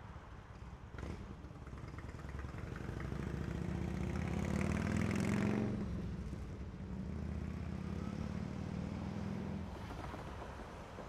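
A motor vehicle's engine passing by: a low, steady engine hum builds over a few seconds, is loudest around the middle, then fades away.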